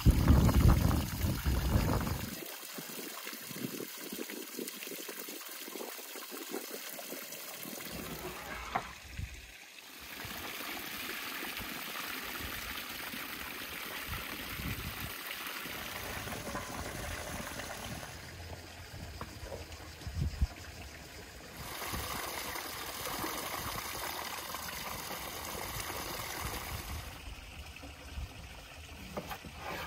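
Water splashing as a bowlful of blackberries is tipped into a basin of water, louder in the first couple of seconds. Then a steady trickle of spring water running into the basin while hands swish the berries around to wash them.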